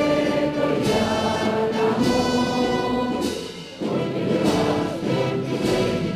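Music with sustained notes, orchestral in character, which dips briefly about three and a half seconds in.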